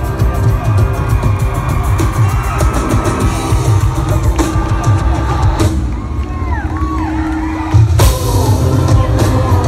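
Live pop-rock band performing with heavy pounding drums, heard from within the crowd, with cheering and whoops from the audience. About eight seconds in a sharp bang hits and the full band comes back louder.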